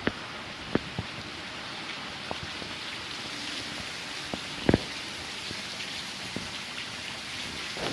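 A steady, even hiss with scattered light ticks and taps, and a sharper double tap about halfway through.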